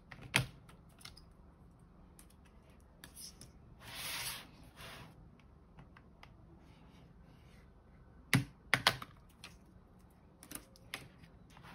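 Sharp plastic clicks and snaps as the side bumper strips are pried off a rugged scan tablet's housing: one about half a second in, a quick cluster about eight and a half seconds in, and a couple more near the end. A softer rubbing, sliding noise comes about four seconds in.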